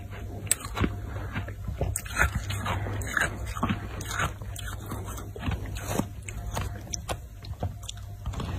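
Snow crunching in quick, irregular crackles as it is pressed and worked by hand, over a steady low rumble.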